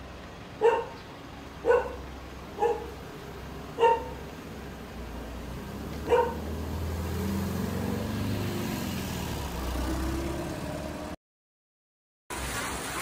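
A dog barks five times in the first six seconds, then a passing motor vehicle rumbles low and steady until the sound cuts off suddenly.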